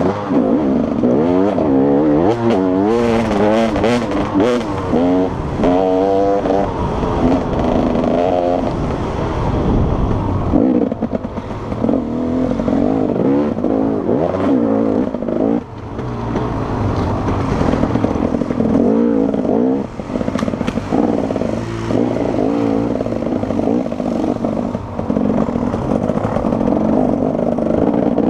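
Enduro motorcycle engine revving hard and easing off again and again as the bike is ridden through mud and ruts, with the throttle briefly shut a few times. Knocks and clatter from the bike over rough ground, thickest a few seconds in.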